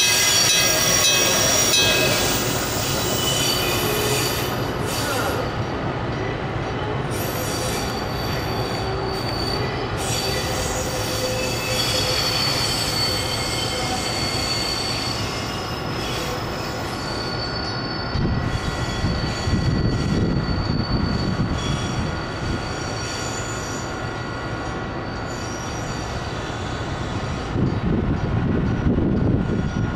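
Steel wheels of a slow-moving industrial shunting train squealing on a tight curve. It is a shifting set of high, steady squeals that come and go, strongest near the start, over a low rumble.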